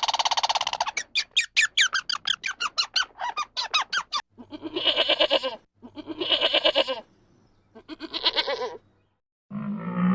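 Horse whinnying: one long, high, quavering whinny that breaks into a run of pulses over about four seconds, followed by three shorter calls.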